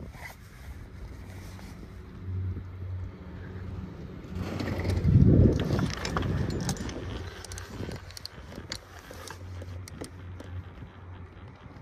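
Doppelmayr detachable six-seat chairlift running under the rider, a steady low hum with scattered clicks and rattles. A louder rumble swells and fades about five seconds in.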